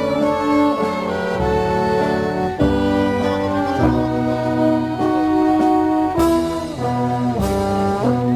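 Brass music, with trombones and trumpets holding long chords that change every second or so. Two sharp strokes, like percussion hits, come in the last third.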